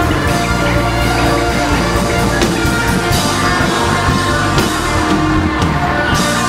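Live worship band playing loud instrumental music, with a drum kit keeping up frequent hits and cymbal crashes under sustained chords.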